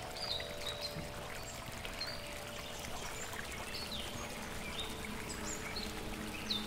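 A steady rush of running water with small birds chirping again and again, over soft held notes of background music.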